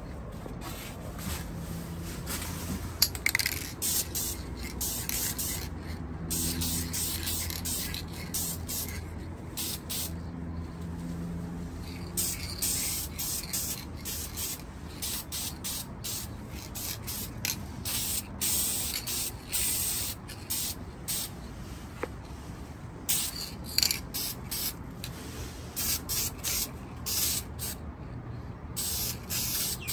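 Dupli-Color aerosol spray paint can hissing in repeated bursts, some brief and some held for a few seconds, as red paint is sprayed onto steel upper control arms.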